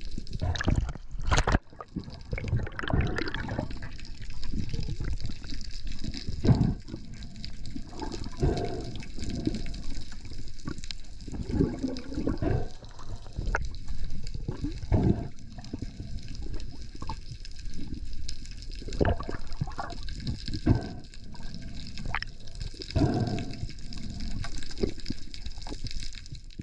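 Water sloshing and gurgling around a diver swimming, in irregular splashes and bubbling bursts.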